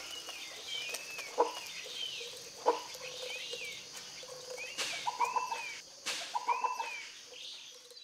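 Birds calling: a short arched note repeats about once a second, with a few louder, sharper, lower calls mixed in, two of them single and two in quick clusters.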